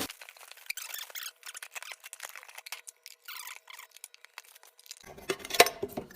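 Scattered light clicks and taps of a metal windproof lighter and its parts being handled, with a few louder knocks about five seconds in.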